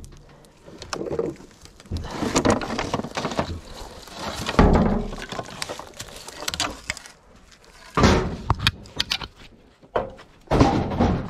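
Heavy things being handled and moved: a series of irregular thumps, knocks and scrapes, with a quick run of sharp clicks about eight seconds in.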